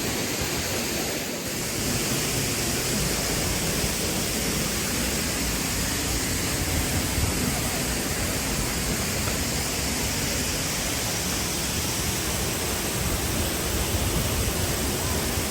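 Steady rush of a waterfall's falling water, an even roar with no break.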